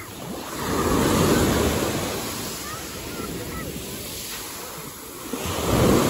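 Waves breaking on the shore. The surf swells twice, about a second in and again near the end, with a quieter wash between.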